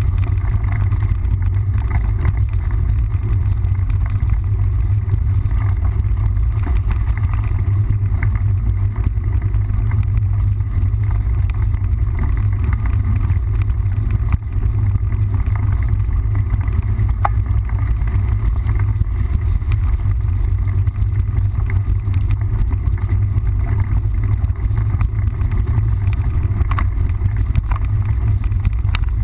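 Steady low rumble of wind on the microphone and tyres rolling over a dirt trail from a mountain bike on the move, with scattered small clicks and rattles.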